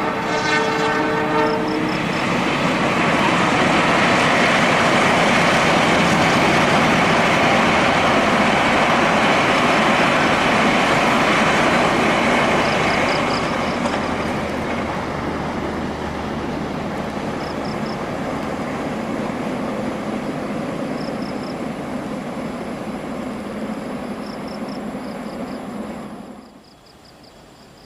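Railway train passing: its horn sounds briefly at the start, then a long, steady rush of train noise that is loudest for the first half, eases off and drops away suddenly near the end.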